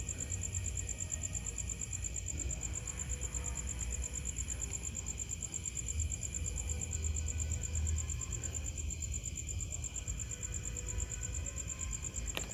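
Night insects, crickets among them, trilling in a steady high-pitched drone. A second, higher insect call comes and goes every couple of seconds over a low rumble.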